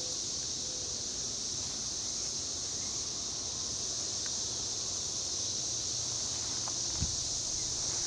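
Brood XIX periodical cicadas singing in chorus, a steady unbroken high-pitched din with no let-up. A light knock sounds near the end.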